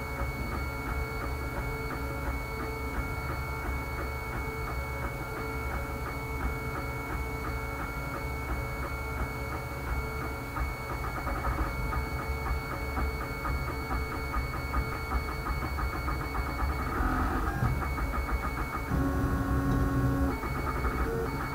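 Home-built wooden-frame 3D printer running a print: its stepper motors whine in several steady tones over a low hum, the tones shifting as the print head changes direction and speed, most clearly twice late on.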